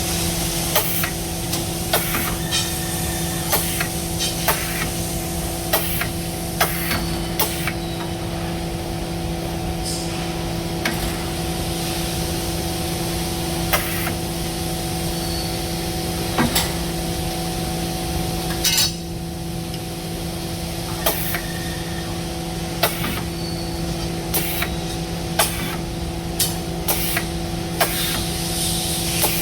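Automated CNC pipe-bending line at work: a steady machine hum throughout, broken by frequent sharp metal clicks and clanks and a few short air hisses as the loader, bender and unloader cycle.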